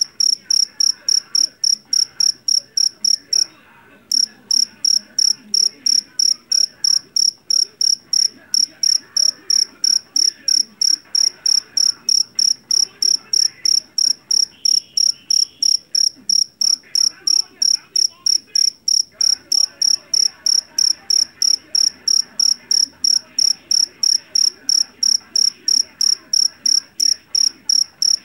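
A male jangkrik jeliteng (Javanese field cricket) chirping loudly and steadily, about three shrill chirps a second, with one brief pause about three and a half seconds in.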